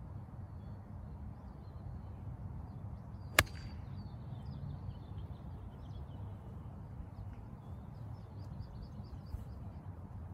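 A golf iron strikes a ball off fairway turf once, a sharp crack about three and a half seconds in. Birds chirp in the background, with a quick run of chirps near the end.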